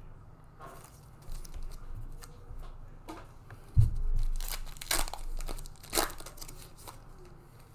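Panini Mosaic foil card pack being torn open, its wrapper crinkling. A dull knock comes a little before halfway, followed by the loudest run of sharp tearing over the next two seconds.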